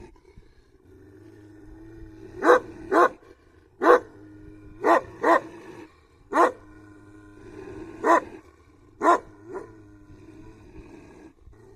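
Dog growling continuously, broken by about nine sharp, loud barks spaced irregularly through the middle of the stretch.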